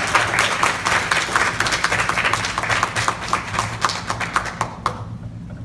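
Audience applauding: many hands clapping, thinning out and dying away about five seconds in.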